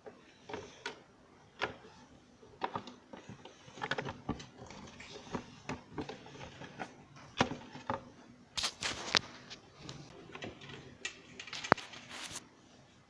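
Irregular clicks and light knocks of a mixer grinder's plastic parts being handled and fitted back together, with a quick cluster of clicks about two thirds of the way in and one sharp click near the end.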